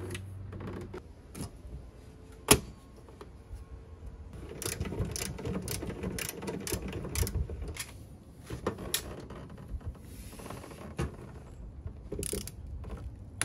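Hand tool working the set screws of 3-port insulated splice connectors on heavy feeder wires inside a metal electrical panel: scattered sharp metallic clicks and handling scrapes, with one sharp click about two seconds in and a run of clicks about two or three a second in the middle.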